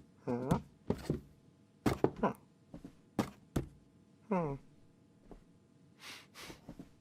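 Cartoon cat sound effects: a few short, voiced meow-like calls that slide down in pitch, mixed with sharp knocks and thunks, and soft breathy puffs near the end.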